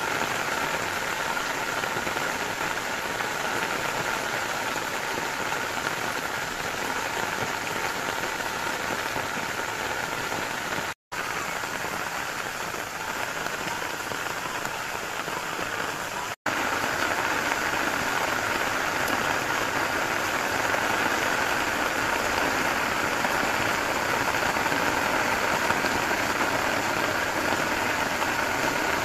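Steady rain falling on garden foliage and ground, an even hiss. The sound cuts out for an instant twice, about eleven and sixteen seconds in.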